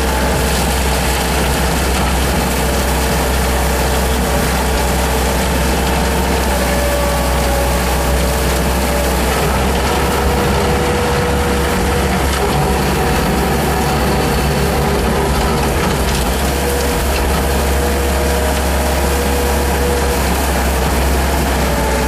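Skid steer loader engine running steadily under load, heard from the operator's seat, while its hydraulically driven Bobcat 72-inch sweeper broom turns against the pavement. A steady deep rumble carries a mechanical clatter and a few whining tones that drift slightly in pitch.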